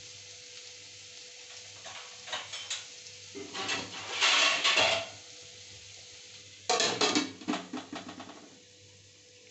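Diced potatoes sizzling softly in an aluminium kadai on low flame, with metal scraping and rattling from about two seconds in, loudest around four to five seconds. Near seven seconds a metal lid is set on the pan with a clatter that dies away in a few rattles, and the soft sizzle goes on underneath.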